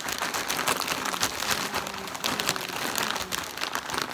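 Plastic Takis chip bag being handled and crinkled: a continuous, irregular crackling.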